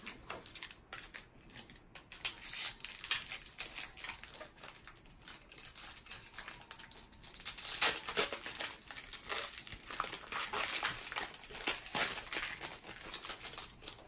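Foil wrapper of a Topps baseball card pack crinkling in irregular crackles as it is torn open by hand, loudest about eight seconds in.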